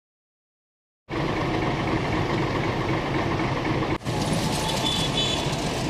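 Silent for about the first second, then steady vehicle engine and road noise, with a brief dip about four seconds in.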